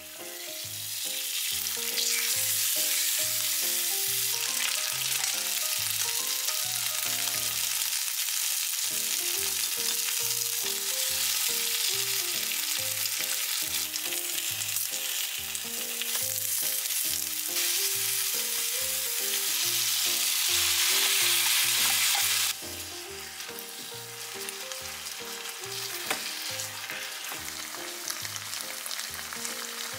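Chicken pieces frying in hot oil in a frying pan: a steady, loud sizzle that drops to a quieter sizzle about three-quarters of the way through. Soft background music plays underneath.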